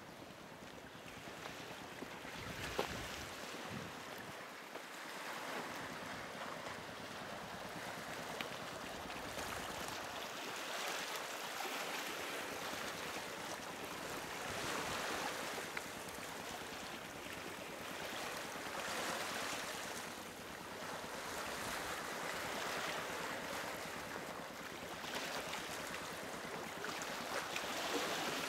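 Small waves washing onto a pebble shore, swelling and ebbing every few seconds, with wind buffeting the microphone at times and a brief knock about three seconds in.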